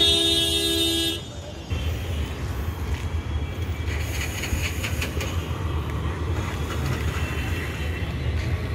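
A vehicle horn honks once, a steady single-pitched blare lasting about a second. After it, a steady low rumble of street traffic continues.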